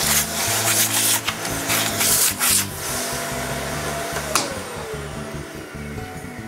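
Broken glass being scraped and crunched out of a leadlight window's lead came with a hand tool: a rough, gritty scraping for about three seconds, then a single sharp click.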